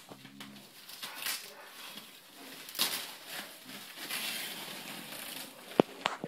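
Soft protective sleeve rustling and crinkling as it is handled and pulled up off a 27-inch iMac, followed by a few sharp clicks near the end.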